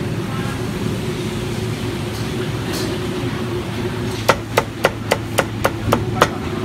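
Meat cleaver chopping roast pork on a thick round wooden chopping block: about eight quick, even chops, roughly four a second, in the second half, over a steady low hum.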